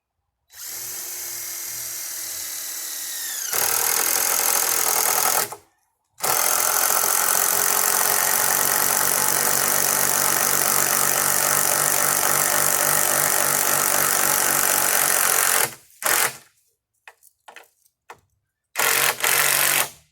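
Power drill run in bursts, as when driving screws into lumber. A first run starts about half a second in and gets louder partway through, then stops. After a short pause comes a long steady run of about nine seconds, then a few brief triggers and one more short burst near the end.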